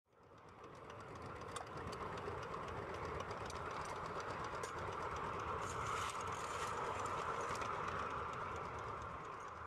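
A 5-inch gauge Bagnall-style live steam locomotive running along its track, heard from the footplate: a steady hiss and rumble with faint, irregular clicks. The sound fades in over the first two seconds and eases down near the end.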